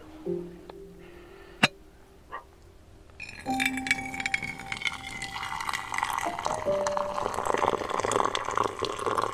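Freshly boiled water poured from a small camping kettle into a mug, a steady pouring sound that starts about three seconds in and runs on, after a couple of light clinks of the kettle. Soft background music plays under it.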